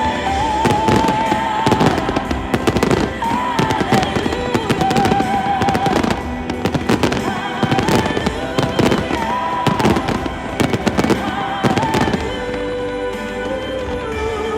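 Aerial fireworks bursting and crackling in rapid succession over loud music with a sustained, wavering vocal melody. The bangs thin out after about twelve seconds, leaving mostly the music.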